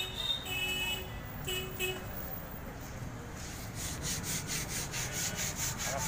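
Hand sanding of a car door's painted steel skin: quick, even back-and-forth rubbing strokes, about four a second, starting a few seconds in. Street traffic runs underneath, with short car-horn toots near the start.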